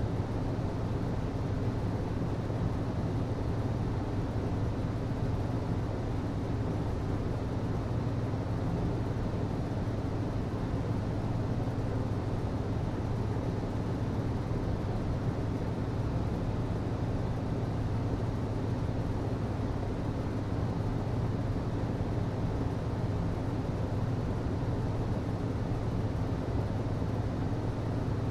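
HVAC system running: a steady, unchanging low hum over an even rushing noise.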